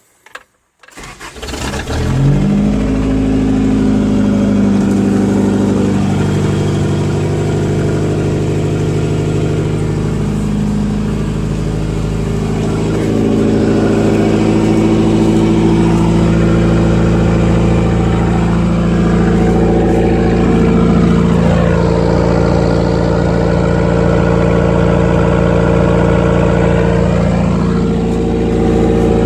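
A car engine cranks and starts about a second in, then runs, its revs rising and falling a few times. The engine has rod knock, the knocking of a worn connecting-rod bearing.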